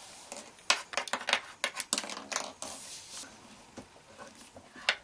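Small hard-plastic Kinder Surprise toy parts clicking and tapping against each other and the tabletop as they are fitted together: a quick run of sharp clicks in the first three seconds, then a few scattered ones.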